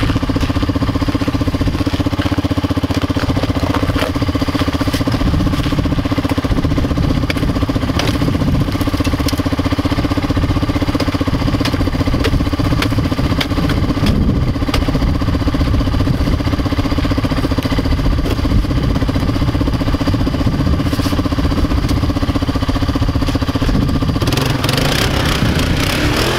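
ATV engine idling steadily while the four-wheeler sits stuck in a slushy creek. Near the end it is throttled up, with a rush of churning noise as the wheels spin in the wet snow and water.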